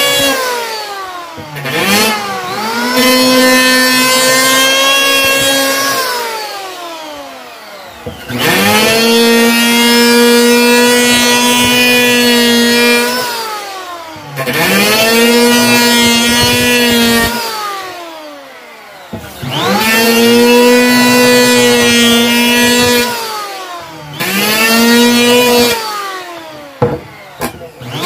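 Lotus 580-watt handheld electric planer switched on and off about five times as it planes a balayong hardwood board. Each run rises in pitch as the motor spins up, holds a steady high whine while cutting for a few seconds, then falls away as the cutter head coasts down. A few light knocks come near the end.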